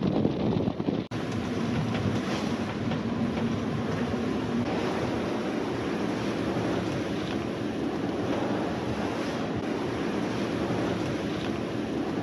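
Wind buffeting the microphone over the rush of waves and wash along the hull of a sailing yacht under way in a strong breeze, a steady noise throughout.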